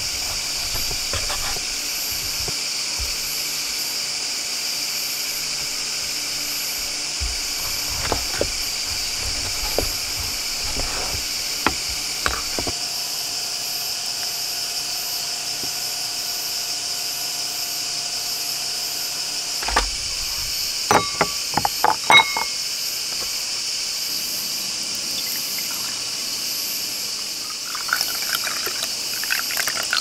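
Crickets chirring steadily in the background, under small knocks and scrapes of a knife cutting fresh figs on a wooden tray. About two-thirds of the way through comes a quick run of sharp clinks with a brief ring.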